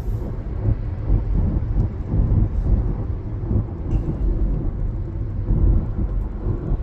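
Low, steady rumble of a car being driven, heard from inside the cabin: road and engine noise with no breaks.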